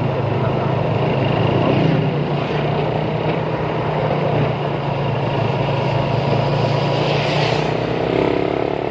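Motorcycle engine running steadily while riding at road speed, with a brief rush of hiss about seven seconds in, then the engine revving higher near the end as the bike accelerates past a jeepney.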